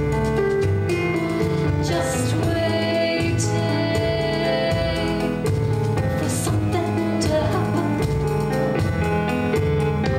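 Music with a steady, rhythmic bass line.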